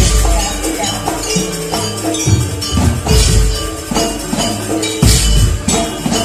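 Live jaranan gamelan music: heavy drum strokes about once a second under ringing metal gong-chime tones and jingling percussion, loud and continuous.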